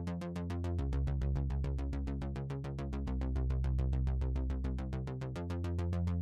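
Electronic background music with a fast, steady beat over synthesizer, its bass note shifting about a second in and again near the end.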